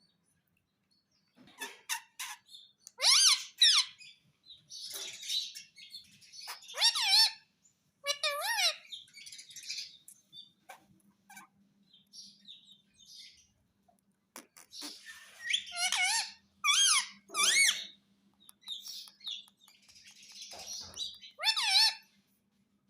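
Pet parrot chirping and warbling in repeated high, wavering bursts with short quiet gaps between them.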